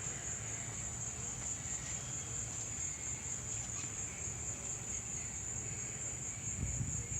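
Steady, continuous high-pitched chorus of insects, such as crickets, trilling without a break.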